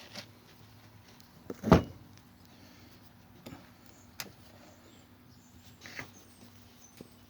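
Scattered clicks and knocks of metal engine parts being handled and fitted against each other while aligning a harmonic balancer with a timing sprocket, with one loud knock a little under two seconds in.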